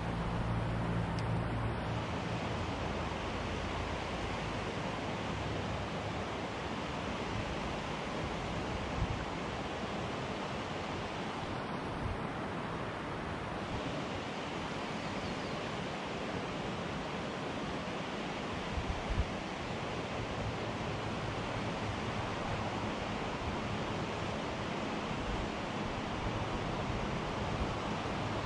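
River water rushing steadily, an even wash of noise with no letup.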